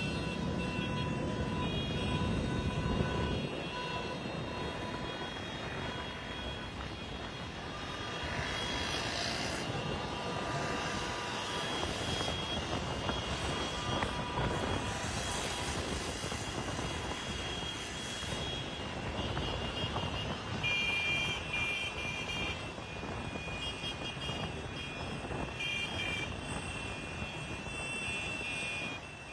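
Cars and motorcycles of a motorcade driving past: a steady din of engines and traffic, with long steady high tones sounding on and off above it.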